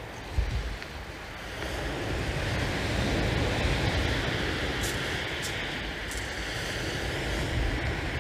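Surf breaking and washing up a shingle beach, with wind rumbling on the microphone. A few light clicks sound about five seconds in.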